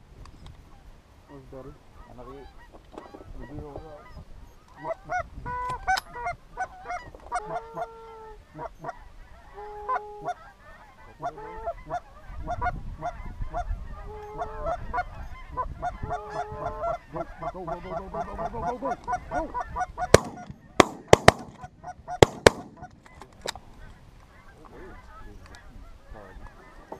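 Geese honking, a long run of short calls one after another. About twenty seconds in, a quick volley of about five shotgun shots in two seconds.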